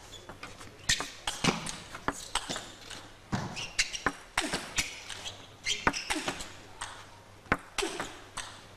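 Table tennis rally: the ball clicking off the bats and bouncing on the table in quick, uneven succession, starting about a second in after the serve toss.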